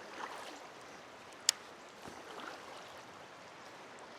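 Steady, quiet hiss of flowing river water, with soft rustles and one sharp click about a second and a half in.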